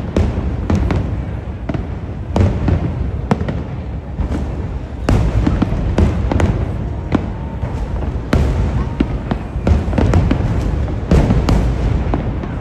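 Fireworks display: many shells bursting in quick, irregular succession, sharp cracks over a constant low booming.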